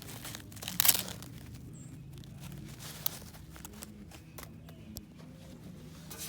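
Handling noises from fuel-system parts: a brief, loud rustling scrape about a second in, then a sharp click and scattered light knocks over a low steady hum.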